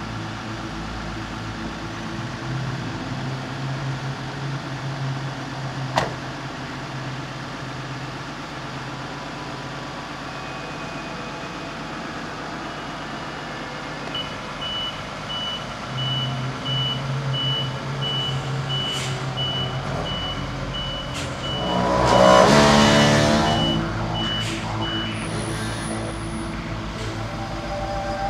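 Heavy vehicles idling with a steady low engine drone. A reversing beeper starts about halfway through and beeps evenly for about ten seconds, and near the end a loud rushing hiss swells and fades; a single sharp click comes about six seconds in.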